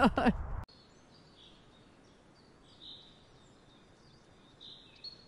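Faint bird chirps, a few short high calls scattered over a very quiet outdoor background.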